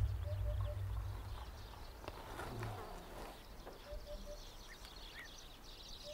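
Countryside ambience: a bird repeats a short, low three-note hoot every few seconds over a dense high chirring of insects and birds that grows toward the end. A deep low rumble at the start fades away over the first two seconds, and a brief rustle of vegetation comes about two and a half seconds in.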